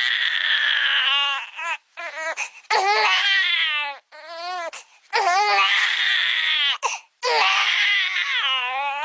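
A baby crying: several long, high wailing cries that waver into sobs, with short breaths between them.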